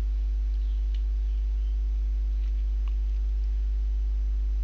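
Steady low electrical hum in the recording, with fainter higher overtones and a couple of faint clicks.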